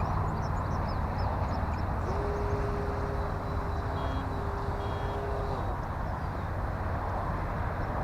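Electric RC plane's brushless motor and propeller buzzing in flight, with a steady tone that holds for a few seconds in the middle. Birds chirp faintly near the start.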